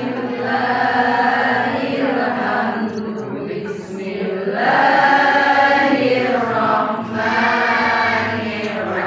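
A group of voices chanting Qur'anic recitation together in long, held melodic lines that swell louder midway.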